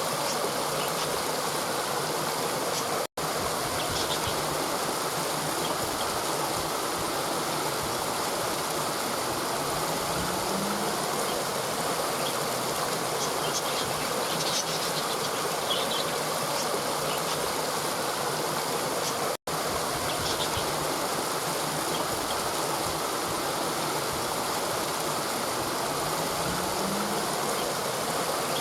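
A river or stream rushing steadily over rocks, with faint high chirps now and then. The sound cuts out for an instant twice, about 3 seconds in and again about 19 seconds in.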